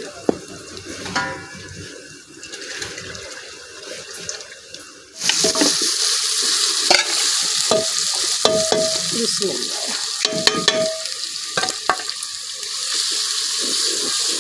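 Food frying in hot oil in a cooking pot: a loud sizzle starts suddenly about five seconds in, with a spoon clicking and scraping against the pot as it is stirred.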